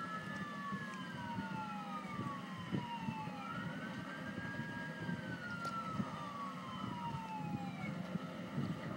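A siren-like wail: long tones that rise and then slowly fall, several overlapping one another, over a steady low hum.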